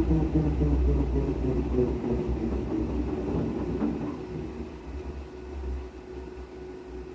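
Brastemp 15 kg washing machine's drum running with a heavy low rumble and a whine that falls in pitch and fades over the first few seconds as it slows. The noise is the sign of a broken basket (drum) support.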